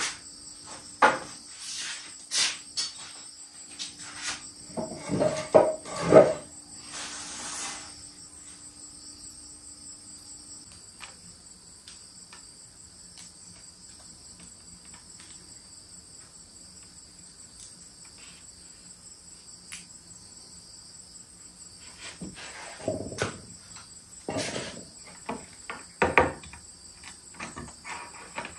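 A steady, high-pitched insect chorus, like crickets, runs throughout. Clusters of knocks and clatter come in the first several seconds and again near the end, with only the insects in between.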